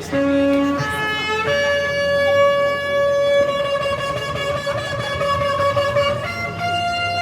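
Shofar blown: a few short notes, then one long held blast that steps up to a higher pitch near the end.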